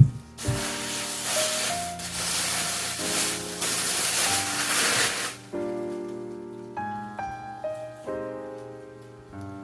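Background music with sustained notes, and a loud hissing noise over it for about five seconds in the first half.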